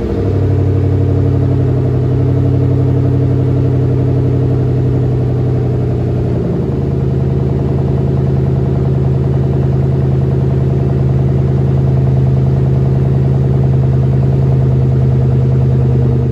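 Ford Mustang Mach 1's 4.6-litre DOHC 32-valve V8 idling steadily just after starting. Its note shifts slightly about six and a half seconds in, then holds steady again.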